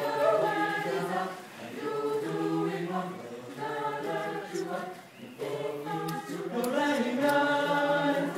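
Mixed choir of men and women singing a cappella, holding long chords, with brief breaks about a second and a half in and again about five seconds in.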